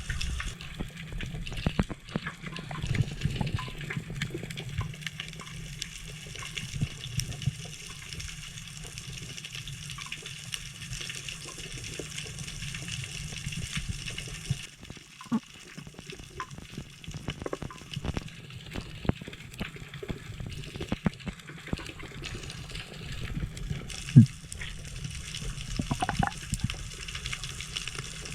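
Underwater sound picked up by a camera in a waterproof housing: a steady low rush of moving water with many scattered sharp clicks and crackles throughout.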